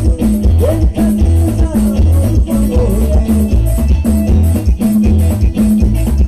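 Live band playing an up-tempo Latin dance number on electric guitar, bass guitar, drum kit and timbales, with a man singing into a microphone. A steady beat with a high percussion pulse about four times a second over a heavy bass line.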